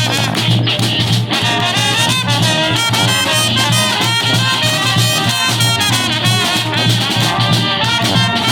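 Brass band playing live: trumpets and other horns over a steady low bass line, without pause.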